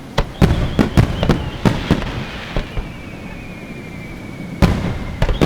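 Aerial fireworks bursting: a quick run of sharp bangs over the first two and a half seconds, a lull, then another cluster of bangs near the end.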